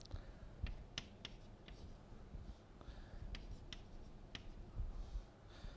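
Chalk writing on a chalkboard: a run of faint, sharp, irregular taps and clicks as the chalk strikes and moves over the board.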